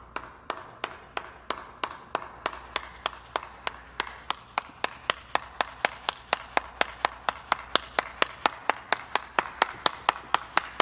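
One person's slow clap: single hand claps, about two a second at first, gradually quickening to about four a second near the end.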